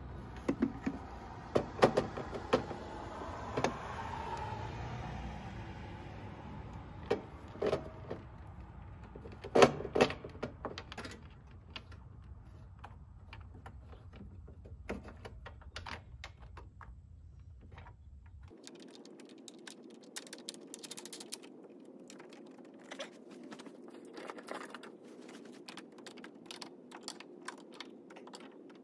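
Insulated electrical wires being handled and fed through a knockout into a metal breaker panel: scattered sharp clicks and taps of wire against the steel enclosure, with rustling, loudest in the first third. A low background rumble stops abruptly about two-thirds of the way through, and the small ticks of handling carry on.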